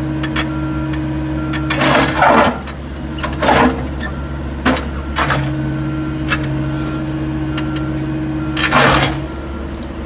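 Heavy equipment running: the diesel engines of a backhoe loader and a Bobcat excavator make a steady drone. A humming tone is in it for the first two seconds and again from about five to nine seconds in. Several sharp clanks and knocks of the buckets and rock break through it, the loudest near the end.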